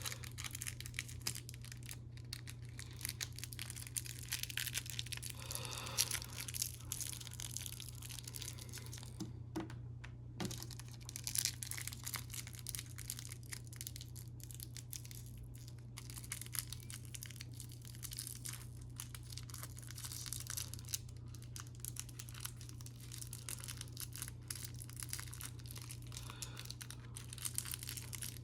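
Model packaging being handled and opened: irregular rustling, crinkling and tearing of plastic and cardboard, with scattered light clicks, over a steady low hum.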